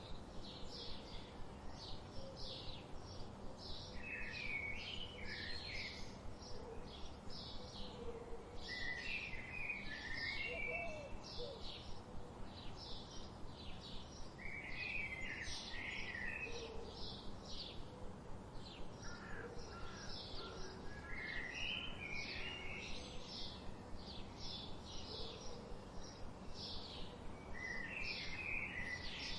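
Songbirds singing: a steady run of short, high repeated notes, a few each second, with a lower warbling phrase breaking in about every five seconds.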